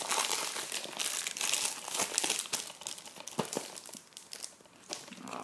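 Clear plastic shrink-wrap being torn and crinkled off a Blu-ray case by hand: dense crackling that thins out after about three and a half seconds.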